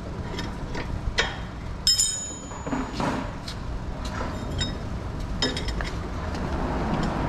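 Metal hand tools and suspension parts clinking during coilover work at a car's front wheel: several sharp clinks, one about two seconds in ringing briefly. Under them is a steady low rumble.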